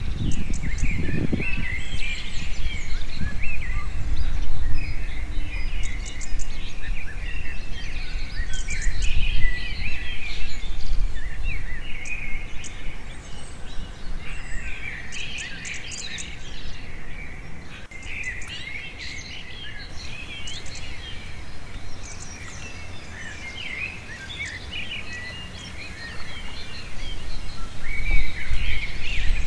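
Several birds chirping and trilling, many short calls overlapping, over a steady low rumble that is louder in the first half and again near the end.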